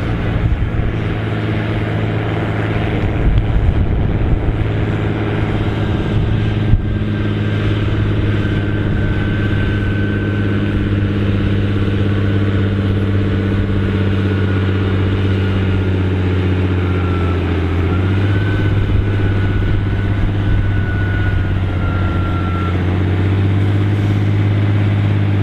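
Massey Ferguson 6499 tractor's diesel engine running hard under full load as it drags a tractor-pulling sled, a steady heavy drone with a faint high whistle above it. About two thirds of the way through, the engine note drops slightly as the sled's load builds.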